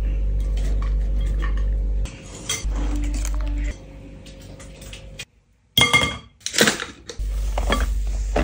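Kitchen utensils clinking and knocking against a glass mixing bowl and bowls of ingredients, over a steady low hum. About five seconds in the sound briefly drops out, then a few loud ringing clinks follow.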